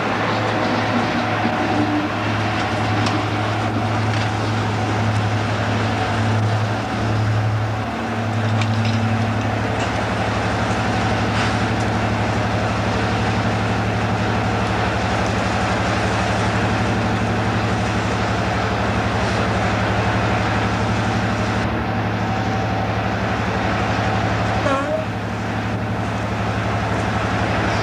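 Class 55 Deltic diesel locomotive running at low revs with a steady, deep drone from its Napier Deltic two-stroke opposed-piston engines.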